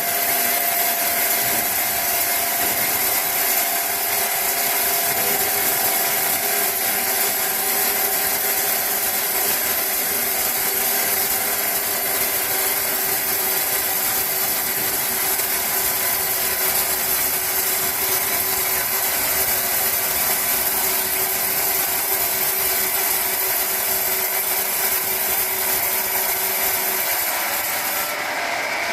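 Large sawmill saw cutting steadily through a log, a continuous high-pitched scraping whine with a few steady tones beneath; the hiss fades about a second before the end.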